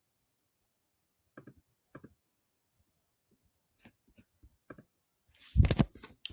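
Scattered single clicks of computer keys, then a louder clatter of several quick knocks about five and a half seconds in.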